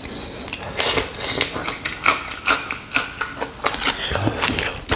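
Close-miked chewing of a mouthful of food with a raw green chilli: many irregular crunches and wet mouth clicks.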